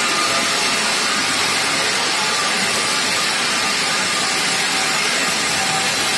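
Large water-cooled diamond circular saw blade of a DAFON kerbstone cutting machine cutting through granite blocks: a steady, loud hissing grind with faint steady tones in it.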